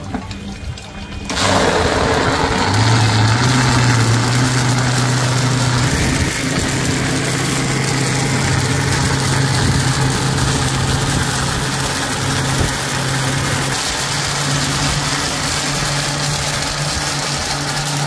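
Commercial double blender's motor switching on about a second in and running steadily, blending falsa berries and water into juice. The hum steps up in pitch a couple of seconds after starting as the motor comes up to speed, then holds steady.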